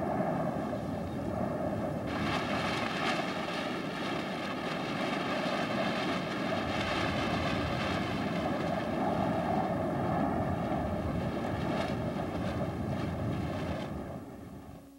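Blizzard wind blowing hard and steadily, buffeting the microphone, fading out near the end.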